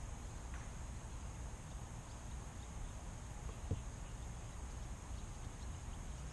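Faint outdoor ambience: a low wind rumble on the microphone and a steady high-pitched whine, with one short low thump about halfway through.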